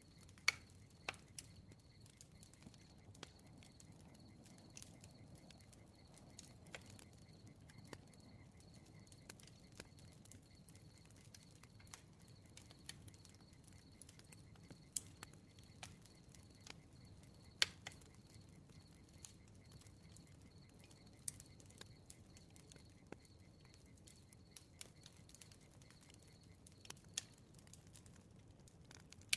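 Bonfire crackling softly: irregular sharp pops and snaps over a low rumble of burning, with a couple of louder pops, one about half a second in and one around the middle.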